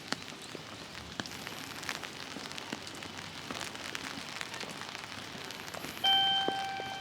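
Rain pattering on an umbrella: a steady hiss with scattered sharp drop ticks. About six seconds in, a louder steady pitched tone comes in and holds.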